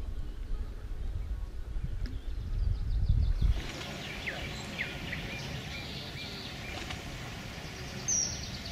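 A low, uneven rumble for the first three and a half seconds. Then, after an abrupt change, quiet open-air ambience with a bird calling in a run of short chirps, about two a second.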